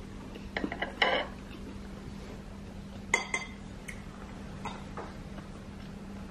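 Metal fork and knife clinking and scraping against a ceramic plate: a few scattered clinks, the sharpest two about one and three seconds in, some with a short ring. A low steady hum runs underneath.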